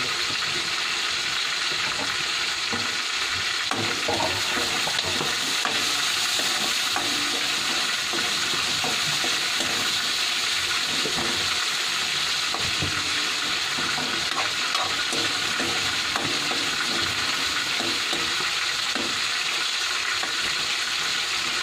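Meat and tomatoes sizzling steadily in a frying pan over a gas flame, with a spatula stirring and scraping through the food now and then.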